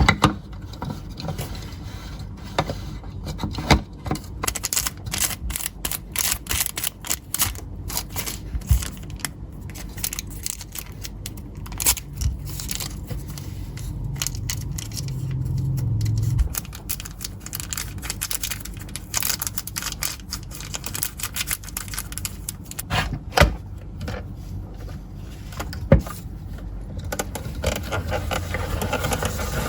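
Slime being stirred and handled close up: a dense run of small sticky crackles, clicks and scrapes, with a few sharper knocks later on.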